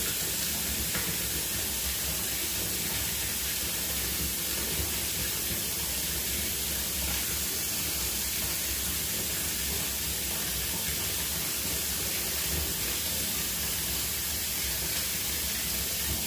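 Steady, even hiss with no change or break.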